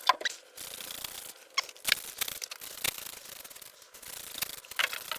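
Rust remover being worked onto a rusty spot on the car's metal: stretches of scratchy rubbing, broken by several sharp clicks.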